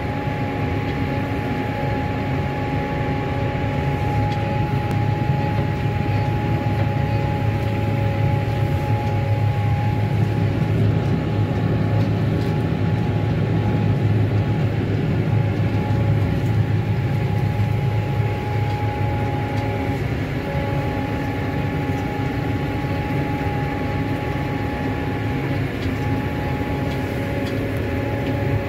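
Claas Arion 440 tractor's diesel engine running under steady load, heard from inside the cab. A low, even drone with a thin steady whine over it that drops out a few times.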